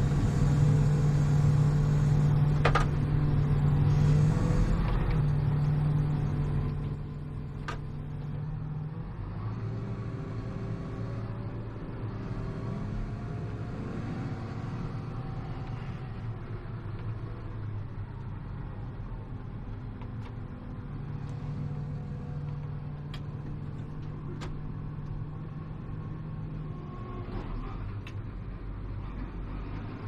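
A tractor's diesel engine running at a steady pitch, louder for the first several seconds and dropping a step about seven seconds in, with a few faint ticks.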